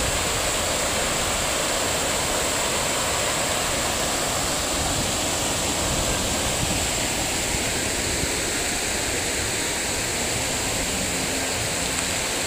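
Water from a large fountain pouring over the rim of its round basin and splashing into the pool, with arcing jets landing in the water: a steady rushing.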